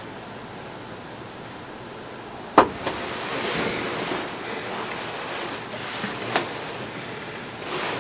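Steady wind noise, broken about two and a half seconds in by a sharp knock and a smaller second click, then rustling. Another click comes a few seconds later.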